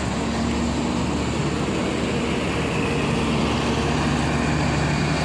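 Mercedes-Benz OH 1626 coach's diesel engine running steadily close by.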